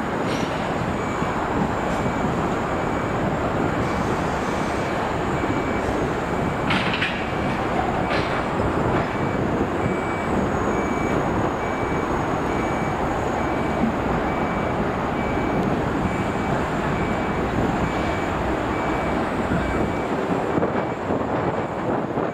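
Steady rumble of heavy traffic and diesel engines, with a high reversing or warning beeper sounding in regular pulses throughout.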